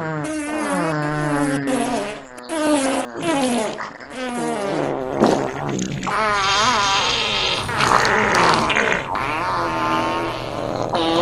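Fart sound effects, several in quick succession: long, pitched blasts whose pitch wavers up and down, some rougher and noisier than others.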